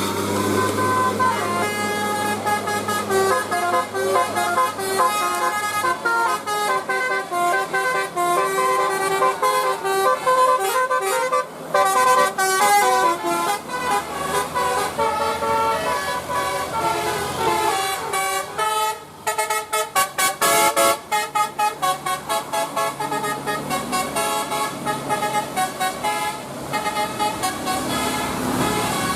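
Tour bus telolet horns of the Basuri type playing a tune of stepped notes, with a quick run of short staccato toots about two-thirds of the way through.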